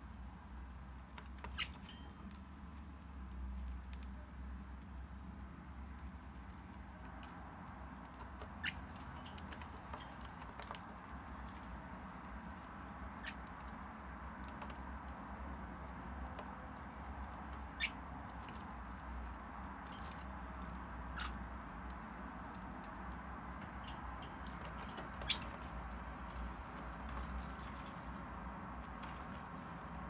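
Parrotlet and red-rumped parrot pecking and nibbling at a small cookie on a cage-floor pad: scattered sharp beak taps at irregular intervals with light scratching, over a low steady hum.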